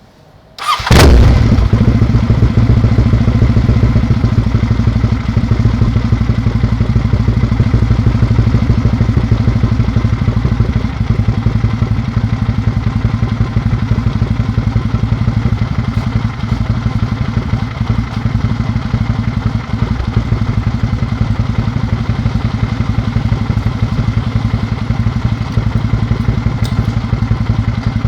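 Kawasaki W650's air-cooled parallel-twin engine, breathing through a BOATRAP cigar-type slip-on silencer, starts about a second in and settles into a steady, deep idle.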